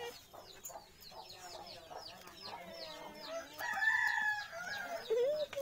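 Animal calls: a quick run of short, high, falling chirps, then a longer held call about three and a half seconds in and a shorter one near the end.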